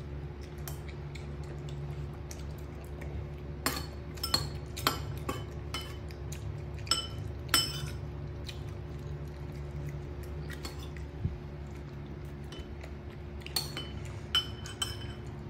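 A metal spoon clinking against a ceramic bowl and plate in scattered taps, some with a short ring, in small clusters, over a steady low hum.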